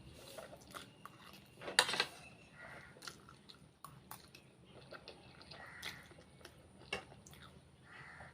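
Close-up mukbang eating sounds: a person chewing and biting food, with small clicks and one louder sharp sound about two seconds in.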